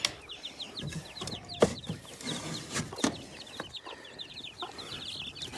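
Chickens clucking in quick runs of short calls, with a couple of sharp knocks, the loudest about one and a half seconds in and another about three seconds in.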